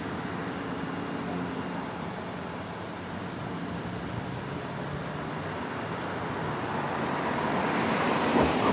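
Road traffic: a steady hiss of car and tyre noise that grows louder near the end as cars approach.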